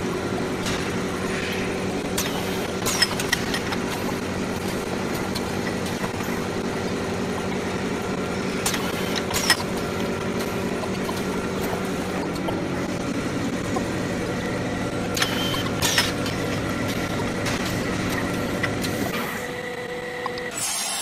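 Automatic grinding-wheel molding machine running with a steady mechanical hum, broken a few times by sharp clacks as its pick-and-place head and molds move.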